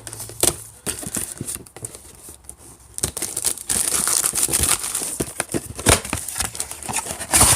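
Cardboard and wrapping crinkling and tearing as a retail box of baseball cards is opened and its packs handled: a steady run of sharp crackles and rustles, busiest in the second half.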